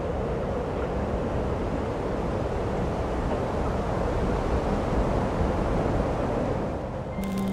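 A steady low rumble of noise with no clear pitch. Near the end it cuts suddenly to a held low note with rapid crackling.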